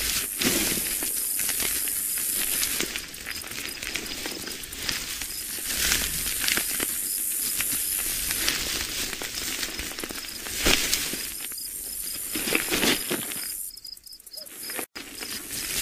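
Rustling, crackling noise dense with small irregular clicks. It dips near the end and then cuts off abruptly.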